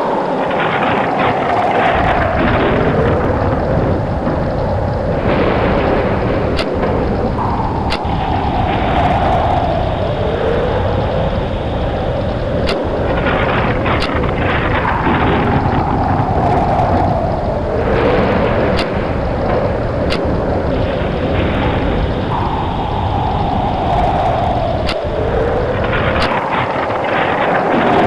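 Thunderstorm sound effect: a loud, continuous rumble of thunder over rain, with a sharp crack now and then. The same rumbling pattern comes back about every seven and a half seconds.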